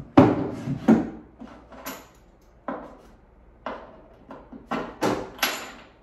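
Irregular wooden and metallic knocks and clunks, about ten in six seconds, as an over-the-range microwave is shifted against the wall cabinet above it and its mounting hardware is worked through the cabinet floor.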